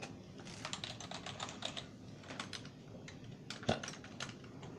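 Typing on the membrane keys of a Logitech K350 Wave wireless keyboard: a quick, irregular run of key taps. Near the end there is one louder knock.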